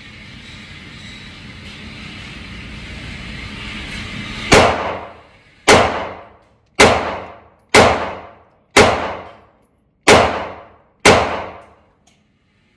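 Seven 9mm pistol shots from an FMK C91 firing 115-grain FMJ, about one a second, each followed by a short echo of the indoor range. The string ends in a failure to extract.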